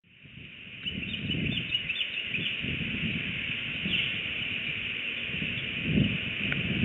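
Outdoor nest-cam sound at dawn fading in: a run of short bird chirps in the first few seconds over a steady high hiss, with wind gusting on the microphone.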